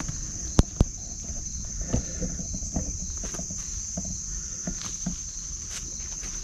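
Steady high-pitched chirring of an insect chorus, with two sharp clicks a little after half a second in and scattered soft knocks and rustles.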